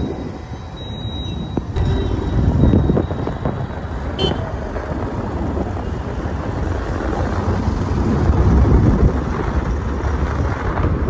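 Ride noise from a moving motorcycle: a steady low rumble of engine, road and wind.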